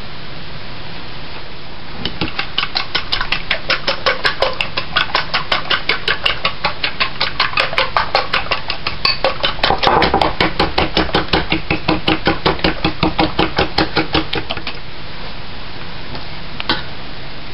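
A fork beating eggs in a small ceramic bowl, its tines clicking against the bowl about four times a second. The clicking starts about two seconds in and stops a few seconds before the end, followed by a single clink near the end, all over a steady hiss.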